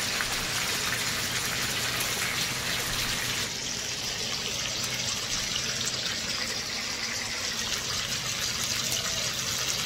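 Hot oil sizzling steadily around two whole red snapper frying in a nonstick pan, being cooked until crispy. The highest part of the hiss goes duller about three and a half seconds in, and a faint steady low hum runs underneath.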